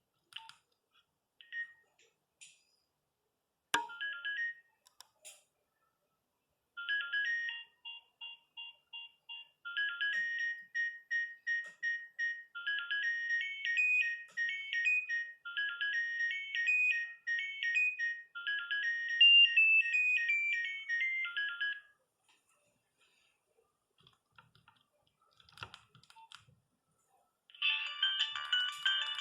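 Nokia 3510 mobile phone playing its built-in ringtones through its small speaker: a fast, high-pitched electronic melody of short repeated notes plays for about fifteen seconds, and near the end the next ringtone starts. A few short clicks and bleeps come before and after the melody.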